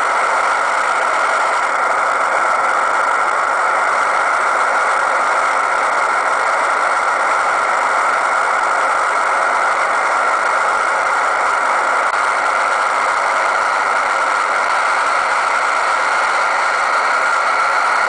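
Radio receiver tuned to a 4G base station's 20 MHz-wide OFDM signal, putting out a steady, hard, hiss-like noise that does not change.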